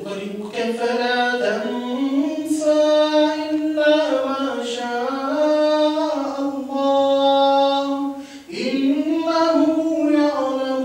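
A single unaccompanied voice chanting in long, ornamented held notes, in the manner of melodic Qur'an recitation. There is a breath about eight seconds in, then the next phrase rises in.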